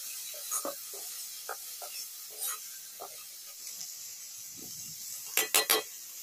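Onions frying in a wok (kadai) with a steady sizzle, while a metal spatula scrapes and taps against the pan now and then. Three sharp knocks come close together near the end.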